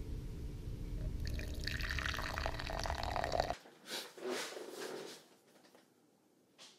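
Coffee poured from a French press into a mug, a trickling pour over a low hum that starts about a second in and cuts off abruptly about halfway through. A few short rustles follow, then near quiet.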